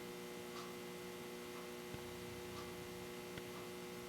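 Steady electrical mains hum with a few faint, light clicks.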